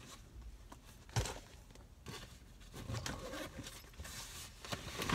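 Soft rustling and handling noises inside a parked car as a person shifts in the seat, with a single knock about a second in.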